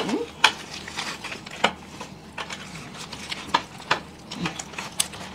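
Close-up eating sounds: bites and chewing of egg rolls, mixed with crackling of the paper wrappers as they are handled and peeled back. Sharp clicks and crackles come at irregular moments, about half a dozen standing out.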